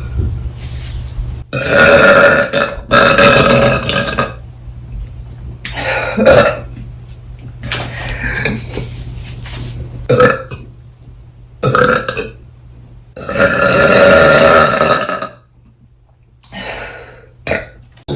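A series of loud burps from young women, about eight in all, some short and some drawn out, with the longest lasting about two seconds near the end.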